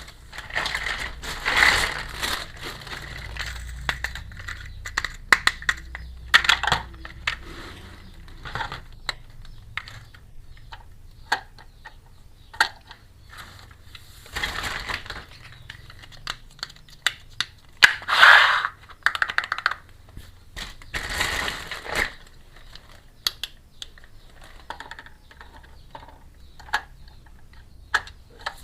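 Small plastic toy pieces clicking and tapping as they are handled and set down, with a few longer rustles of plastic packaging.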